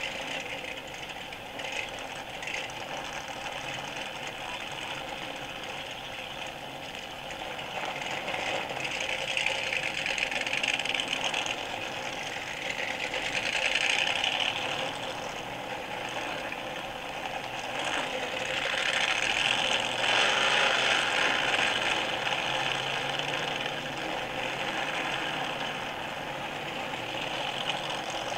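V8 stock car engines racing on the 1964 Daytona 500 track, heard from an old vinyl record with a thin sound and little bass. The engine noise swells and fades several times as cars pass.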